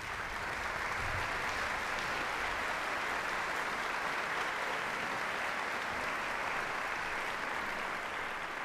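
Audience applauding steadily, the clapping fading off near the end.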